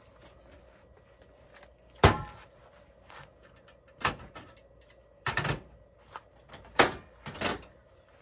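Sharp metal knocks and clunks as butane canisters are set down on an aluminium diamond-plate toolbox lid and handled at a portable gas stove. There are about five separate knocks, the loudest about two seconds in and near the seven-second mark.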